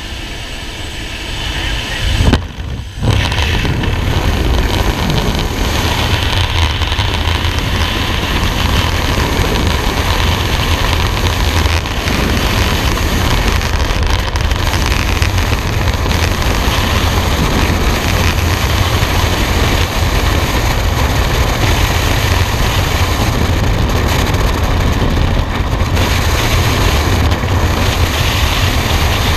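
Freefall wind rushing over the camera microphone, a steady loud roar heaviest in the low end. It follows a couple of seconds of rising aircraft slipstream at the open door, with a brief jolt and dip about two and a half seconds in as the jumper leaves the plane.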